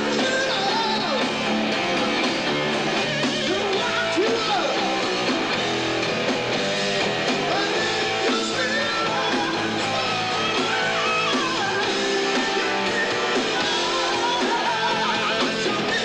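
Rock band playing live: electric guitars over drums and bass, with vocals.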